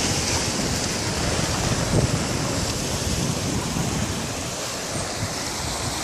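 Steady rushing noise of sea surf breaking on rocks, mixed with wind on the microphone.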